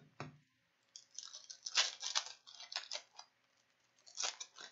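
Upper Deck hockey card pack being handled and opened: a soft knock just after the start, then crinkling and crackling of the foil wrapper and cards in two clusters of short bursts.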